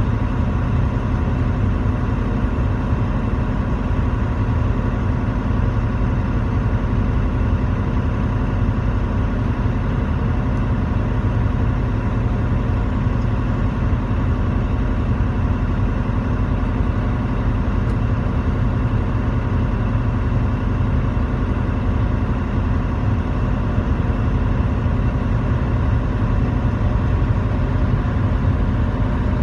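Steady engine and road noise heard from inside a truck cab while cruising on a highway: an even low rumble that does not change.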